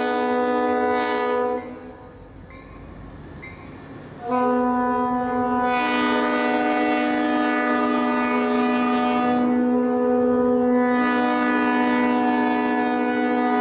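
Locomotive air horn sounding a chord. One blast cuts off about a second and a half in, and a few seconds later a long blast starts and is held to the end, its chord shifting slightly partway through.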